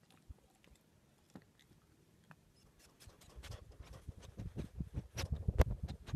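A raccoon nosing right up against the phone's microphone: a run of close scuffs, bumps and sharp clicks that begins about three seconds in and grows louder toward the end.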